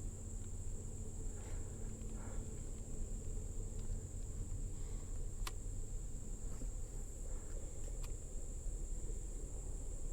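Steady high-pitched drone of insects, with a low rumble underneath and two sharp clicks, one about halfway through and one near the end.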